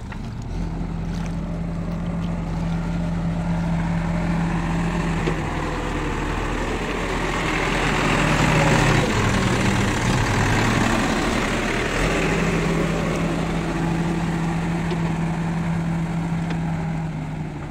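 Diesel engine of an L&T-Case backhoe loader running steadily as the machine wades through shallow water. About halfway through it grows louder for a few seconds, with a rushing noise and a shifting pitch, then settles back to a steady run.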